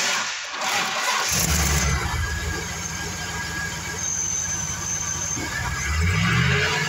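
The 2005 Chevrolet Avalanche 2500's 8.1-litre Vortec V8, fitted with a K&N cold air intake, is cranked by the starter and catches about a second in, then settles into a steady idle. Its engine speed rises briefly near the end.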